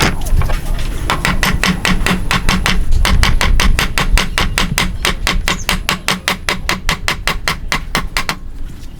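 Hammer or mallet tapping on wood in a fast, even run of about five or six light strikes a second, stopping about a second before the end.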